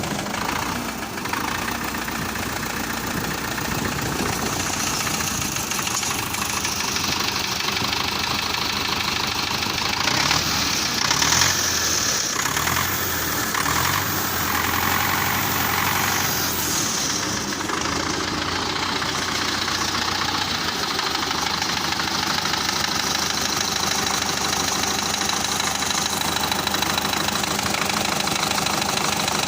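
YuMZ tractor's diesel engine running with a knock, its note changing for a few seconds around the middle.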